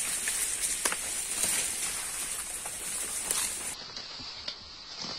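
Leaves rustling and twigs crackling underfoot as someone pushes on foot through forest undergrowth, with scattered sharp snaps over a steady high hiss.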